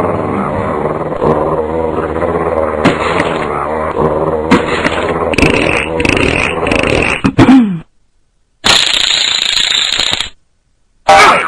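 Background music ends about seven seconds in with a falling slide. After a short silence, a fishing-reel winding sound effect runs for under two seconds, and a sudden loud sound effect comes near the end.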